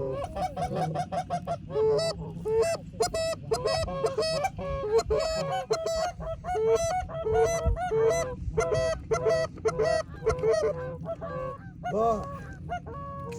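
Geese honking and clucking: many short honks in quick succession, with no break.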